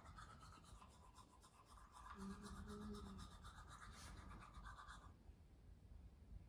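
Near silence: faint room tone with a soft hiss that drops away about five seconds in, and a brief faint low hum about two seconds in.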